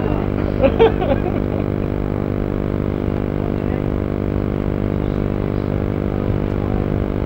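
Steady low machine hum, a drone of several even tones that holds unchanged, with a short voice sound about a second in.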